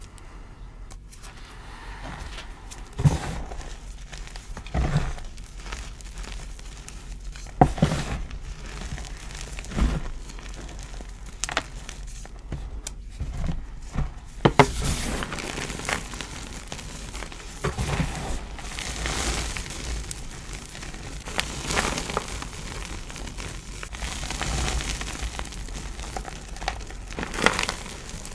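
Gloved hands crushing and squeezing dyed gym chalk in a tray. In the first half, single sharp crunches come every few seconds as clumps break. From about halfway, the sound turns to denser, continuous crumbling of powder.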